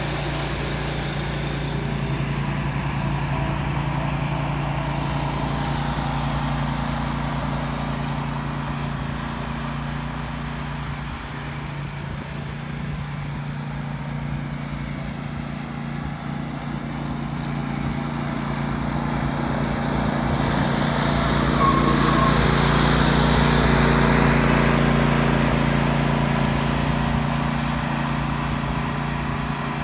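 Cox Lawn Boss zero-turn ride-on mower running steadily as it mows, with a steady engine hum under the cutting noise. It grows louder a little past the middle and eases off near the end.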